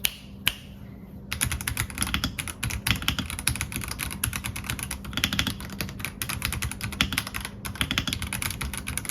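Fast typing on an RK Royal Kludge H81 mechanical keyboard: a stray key click or two, then a dense run of rapid key clacks from about a second in, with one short break about three-quarters of the way through.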